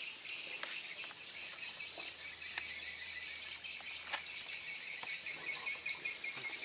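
A steady, high chorus of insects chirring, with a few sharp clicks near the start, middle and about four seconds in.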